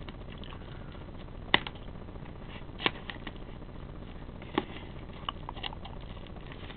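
Plastic postal mailer crinkling and crackling as it is handled and opened, with a few sharp crackles scattered through, the loudest about one and a half seconds in.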